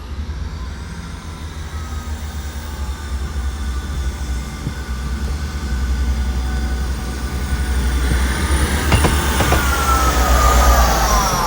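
South Western Railway Class 159 diesel multiple unit approaching and growing steadily louder, with an engine rumble and high steady whines. Near the end the whine falls in pitch as the train passes, and the wheels click over rail joints.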